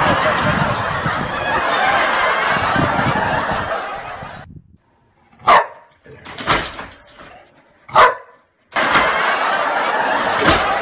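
Dog giving three short, sharp barks, a second or so apart, between stretches of steady rushing noise.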